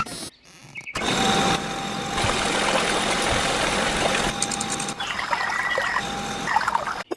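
A small motor running steadily with a noisy whir.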